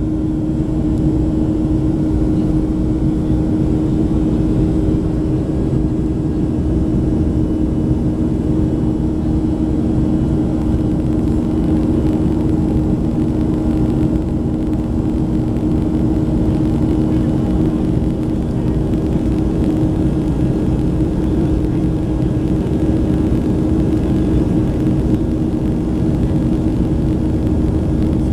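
Steady cabin noise inside a Boeing 737-400 in flight: the constant roar of its CFM56-3 turbofan engines and rushing airflow, with a steady low hum. Heard from a window seat beside the wing.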